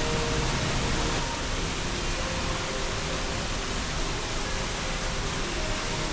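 Steady rush of falling water from nearby waterfalls and the canal: an even, constant hiss with no distinct events.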